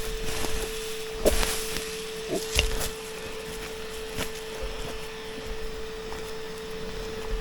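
Japanese giant hornet nest being pulled apart: crackling and snapping of the papery comb, with sharper cracks about a second and two and a half seconds in, over a steady high hum.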